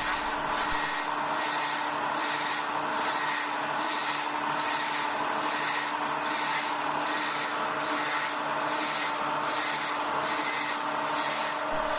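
Doall C-305 automatic horizontal bandsaw running, its blade cutting through a 12-inch steel I-beam: a steady machine hum with blade noise and a faint regular pulse about every two-thirds of a second.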